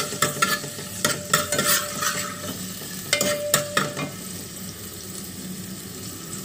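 Chopped garlic sizzling in hot oil in a metal pot for a tadka, with a steel spoon clinking and scraping against the pot as it is stirred. The clinks stop after about four seconds and the steady sizzle goes on alone.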